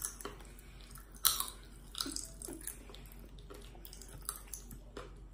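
Popping candy crackling in a mouth, with chewing sounds: scattered sharp little pops, the loudest about a second in.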